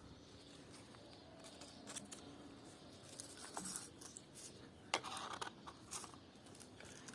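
Faint scattered clicks and rustles of small objects being handled, with one sharper click about five seconds in followed by a brief rustle.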